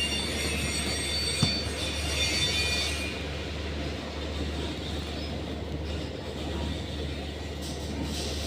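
MIG welder running over a steady low electrical hum, with a high thin whine that stops about three seconds in and one sharp click about a second and a half in.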